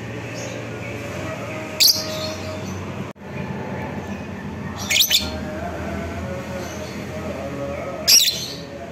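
Fischer's lovebird giving three short, shrill calls a few seconds apart over a continuous lower background sound.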